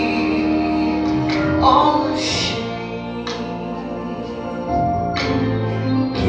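A woman singing a gospel worship song into a handheld microphone, with long held notes, over instrumental accompaniment.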